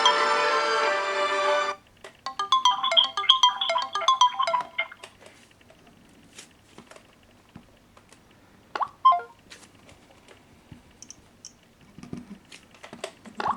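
Several Samsung phones' ringtones and alarm tones sounding at once, cutting off suddenly about two seconds in. A single melodic ringtone phrase plays for a few seconds, then there are scattered taps and clicks from handling the phones, a brief chirp midway, and another tone starting right at the end.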